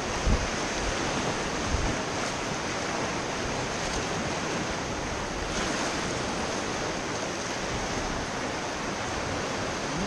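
Steady rushing of whitewater river rapids around the raft, with wind buffeting the microphone and two low thumps in the first two seconds.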